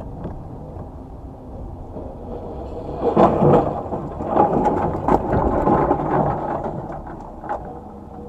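Low rumble of a vehicle on the road. About three seconds in it breaks into a run of loud bangs and crunching that lasts several seconds and then fades: a vehicle collision.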